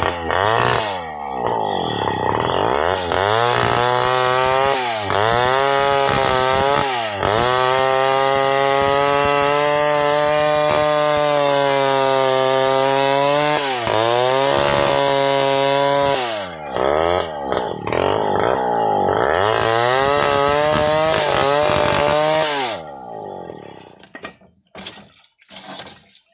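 Two-stroke chainsaw fitted with an extended bar ripping lengthwise through a large log, its engine pitch sagging under load and climbing back again and again. The engine sound cuts off near the end, leaving a few faint knocks.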